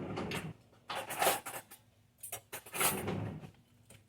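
Kitchen handling noise: things being moved and set aside, in three short bursts of scraping and rustling.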